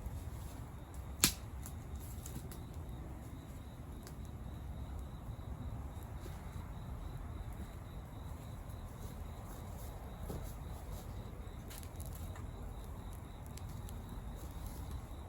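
Wood campfire crackling with scattered small pops, one sharp loud pop about a second in, over a steady low rumble.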